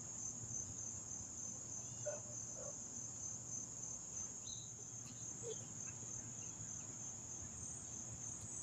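Steady, high-pitched chorus of insects trilling, with a few faint short chirps over it.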